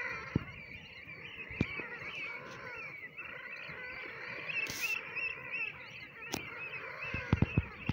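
A large flock of waterbirds calling over one another, a steady overlapping chorus of squawks and cries. A few sharp knocks cut through, several in quick succession near the end.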